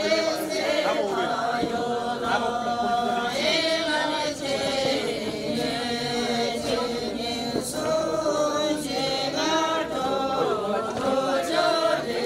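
A group of voices singing a Sherpa shyabru song together, unaccompanied, several voices holding the same line at once.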